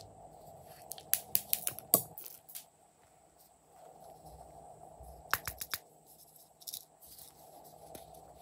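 Hands handling small squishy toy figurines: quick sharp clicks and crackles in a burst about a second in, and again about five seconds in.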